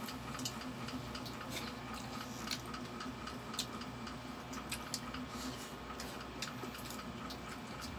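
Quiet eating sounds: faint chewing of fried fish, adobong kangkong and rice, with small scattered clicks of mouths and fingers on plastic plates.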